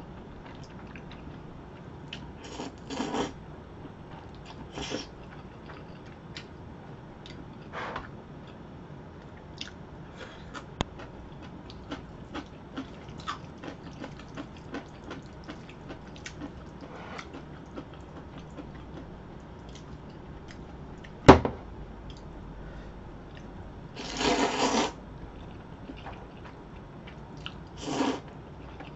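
Close-up eating of jjajangmyeon black bean noodles: chewing with small wet mouth clicks, broken by short slurps of noodles a few seconds in, a longer slurp about 24 seconds in and another near the end. A single sharp knock about 21 seconds in is the loudest sound.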